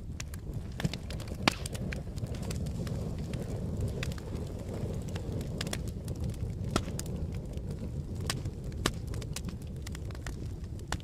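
Campfire burning with a steady low rumble and scattered crackles and pops, the sharpest pops about one and a half seconds and seven seconds in.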